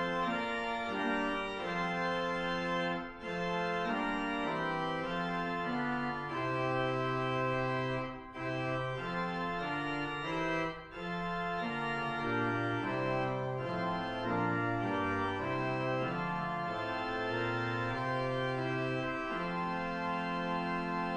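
Organ music: slow, held chords moving from one to the next, with brief breaks between phrases.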